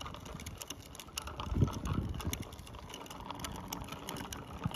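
Child's bicycle rolling along a paved path, its rear freewheel giving a light, rapid, uneven ticking, with a few low thuds about a second and a half in.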